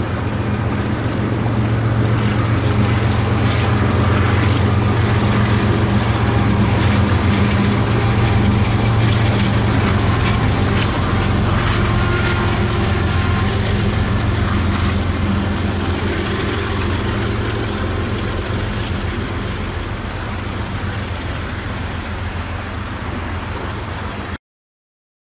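Canadian Pacific freight train passing close by. Its diesel locomotives run with a loud, steady low drone, then the tank cars roll past. The sound cuts off abruptly near the end.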